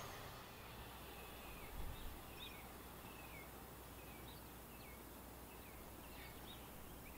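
Small birds chirping, short high calls repeated every second or so, over faint background noise.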